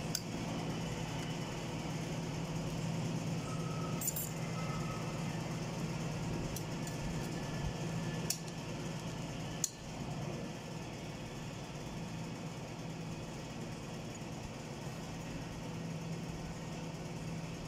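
Steel automatic-transmission parts clinking a few times as clutch drums and a shaft are handled, over a steady low hum.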